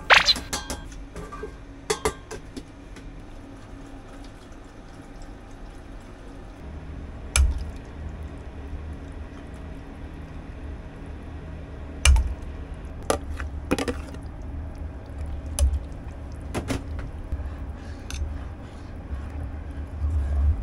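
Cooking at a stove: chicken pieces and curry broth splashing in a steel pot, with scattered clinks and knocks of a spatula and containers against the pot. A steady low rumble runs underneath.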